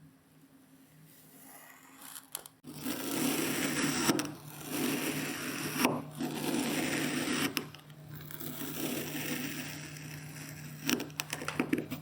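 Kinetic sand being crushed and cut: a grainy crunching scrape that starts about two and a half seconds in and comes in several long strokes, with a quick run of sharp crackles near the end.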